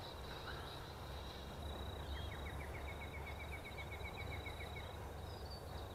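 Outdoor field ambience: a steady high insect drone, with a rapid run of chirps from about two seconds in that lasts around three seconds, over a faint low steady rumble.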